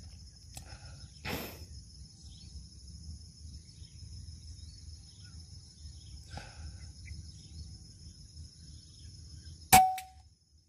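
A single sharp crack of a PCP air rifle firing, near the end, followed by a brief ringing tone. Under it runs a steady, high-pitched insect chorus of crickets or cicadas.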